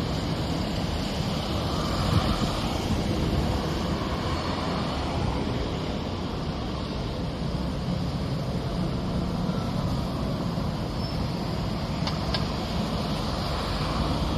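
Steady vehicle rumble with a low engine or motor hum, holding an even level throughout.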